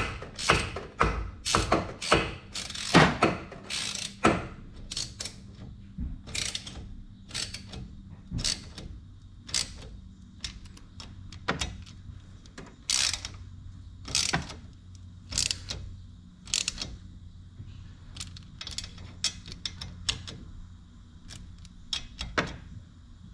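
Socket ratchet on an extension clicking in quick irregular strokes as bolts are run in on an engine cover. The clicks come thick and fast for about the first five seconds, then sparser and more spread out.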